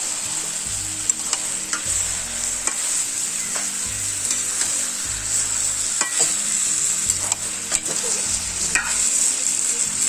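Chicken pieces and spice paste sizzling in hot oil while being stirred and sautéed, with scattered clicks and scrapes of the stirring utensil.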